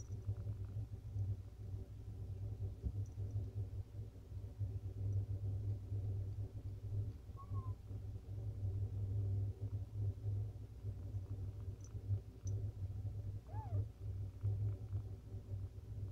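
A mother cat purring steadily while her newborn kittens nurse. Twice, about halfway and again later, a kitten gives a short faint mew.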